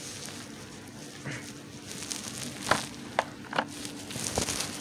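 Handling noise: several light clicks and knocks as a toy's plastic blister-pack card is fetched and set down on a bed, over a faint steady hum.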